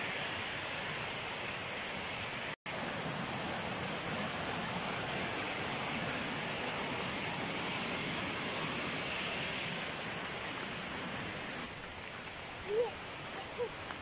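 Steady rush of flowing water from a forest stream. The sound cuts out for an instant about two and a half seconds in, and near the end it gets a little quieter and two short chirps are heard.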